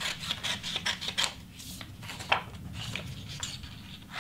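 Scissors cutting through a sheet of sublimation print paper: a run of short snips, two of them louder about one and two seconds in.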